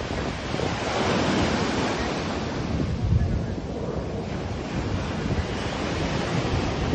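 Sea surf breaking and washing in, with wind buffeting the microphone as a low rumble.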